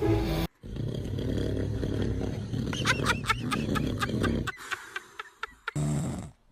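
A man snoring, one long, loud, rasping snore, with a few short high-pitched sounds over it about halfway, then a few sharp clicks.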